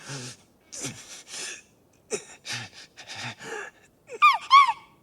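A person's gasping, breathy vocal sounds: a string of short gasps, then two short, high-pitched squeaky cries near the end.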